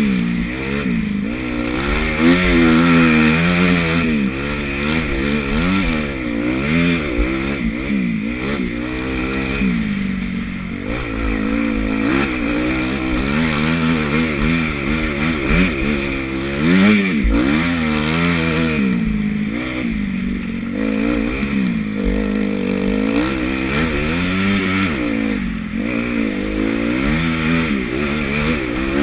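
Honda CRF250 motocross bike's single-cylinder four-stroke engine revving up and down again and again as the throttle is opened and shut through a lap, with a few short thumps along the way.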